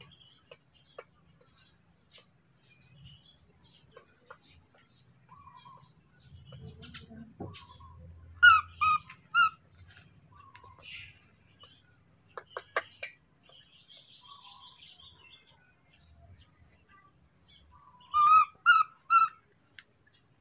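Short, high-pitched animal calls, three in quick succession about halfway through and three more near the end, with fainter calls in between.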